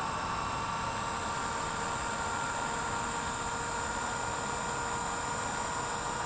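Blade 230S V2 electric RC helicopter running on its pad: a steady high whine from the brushless motor and spinning rotor, over a hiss.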